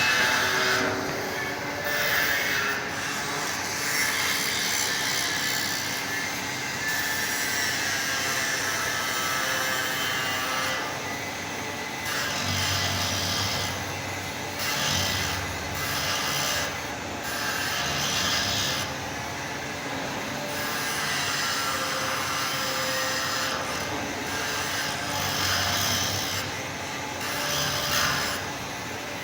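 Angle grinder grinding down welds on metal, its noise swelling and dipping every few seconds.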